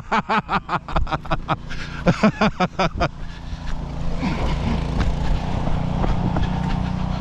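A person's voice in quick, rhythmic bursts for about three seconds, then a steady low rumble for the rest.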